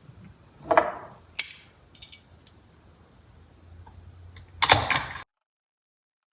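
Hand tool driving a small screw into steering-wheel trim: a few light clicks and short knocks of metal and plastic parts being handled, with a louder clatter near the end, after which the sound cuts to dead silence.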